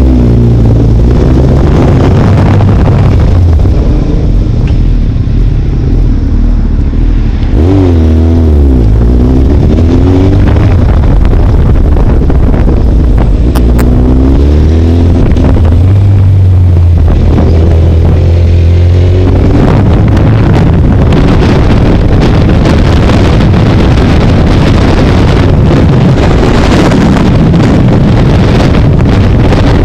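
Motorcycle engine revving up and dropping in pitch several times as it pulls away and shifts through the gears. Wind noise on the microphone builds as speed rises and takes over in the last third.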